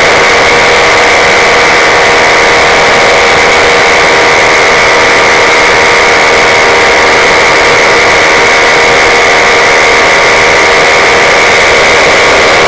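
Paramotor engine and propeller running steadily in flight, loud and unchanging, heard close from the pilot's harness.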